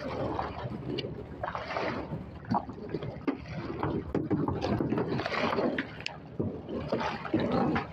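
Water slapping and sloshing against a small boat's hull and the pier pilings it is tied against, coming in irregular swells with a few short knocks and wind on the microphone.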